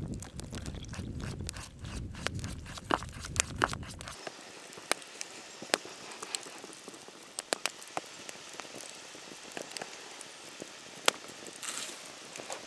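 A spoon stirring pancake batter in a metal pot, with irregular sharp clicks and taps as the spoon hits the pot. A low rumble under it stops abruptly about four seconds in.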